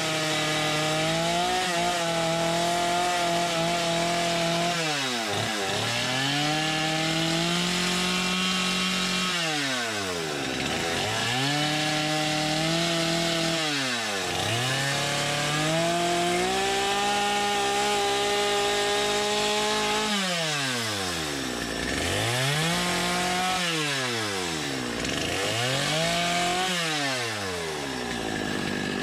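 Chainsaw cutting into a block of scrap wood, its engine revving up and holding under the cut, then dropping back toward idle, again and again. The throttle cycles come quicker near the end.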